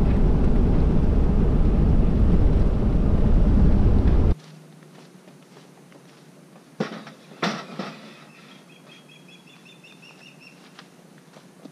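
A loud, steady low rumble of noise that cuts off abruptly about four seconds in. Then quiet open-air ambience with two knocks a little apart, and a bird singing a short series of high, repeated chirps.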